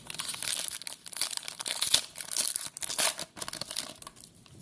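Foil wrapper of a Panini Prizm trading-card pack crinkling and tearing as it is opened, a dense run of irregular crackles that dies down near the end.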